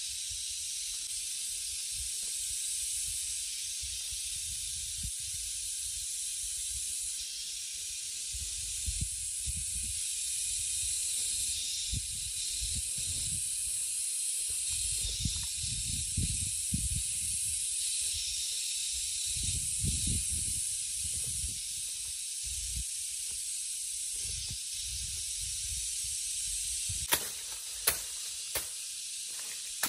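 A steady high-pitched hiss with uneven low rumbles underneath, and a few sharp knocks near the end.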